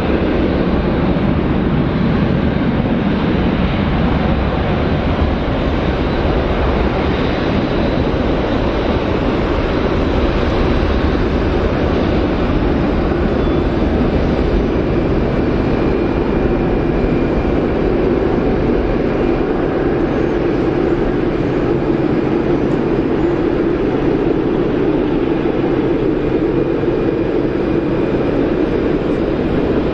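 Jet engines of a Boeing 747 freighter running at takeoff power, a loud, steady noise. Its pitch firms up into a band in the second half.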